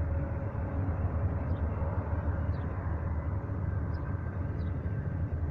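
Union Pacific intermodal freight train rolling past, a steady low rumble of its wheels and cars on the rails.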